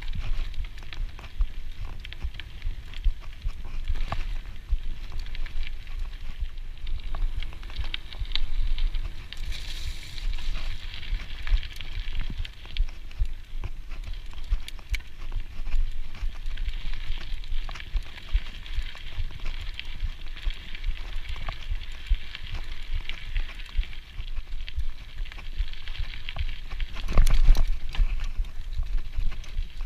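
Full-suspension mountain bike rolling along a dirt singletrack: a steady low rumble with tyres crackling over the dirt and frequent small rattles and clicks from the bike over bumps. A harder cluster of knocks comes near the end.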